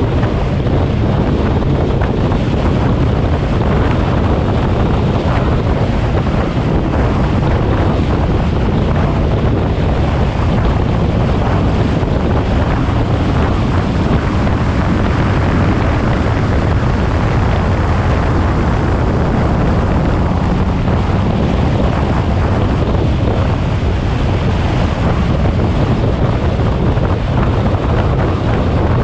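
Steady in-car drone of the twin-turbo Nissan 350Z driving at an even pace, with engine, road and wind noise buffeting the microphone and no revving up or down.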